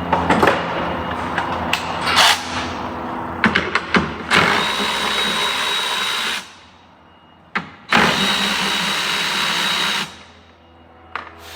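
Handheld power tool run in two bursts of about two seconds each, with a high whine, spinning off a wiper-arm nut with a 14 mm socket. Clicks and knocks of the socket going on come before the bursts.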